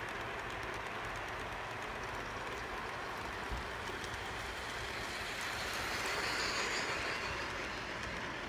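Large-scale garden-railway model trains running on outdoor track: a steady rolling noise of the wheels with light clicking over the rail joints, growing louder about six to seven seconds in as a model steam locomotive and its passenger coaches pass close by.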